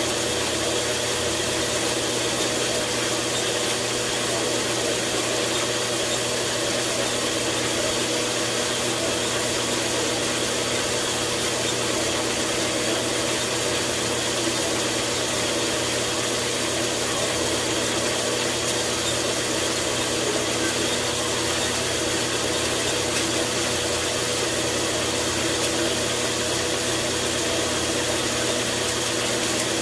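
4x6 horizontal metal-cutting bandsaw running steadily, its blade sawing through a brass round bar: an even motor hum under a constant rasp from the blade, with no change in pace.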